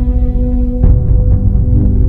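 Background music soundtrack: sustained low chord with a sudden change and a struck hit a little under a second in.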